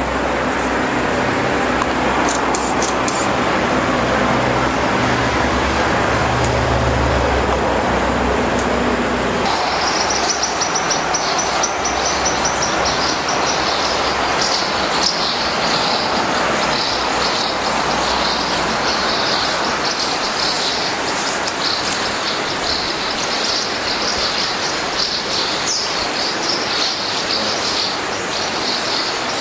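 A steady low hum under a noise haze, which switches abruptly about ten seconds in to a steady rushing noise with high, continuous chirping of insects.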